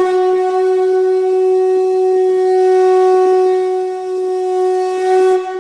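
A wind instrument holding one long steady note with a breathy edge, easing off near the end.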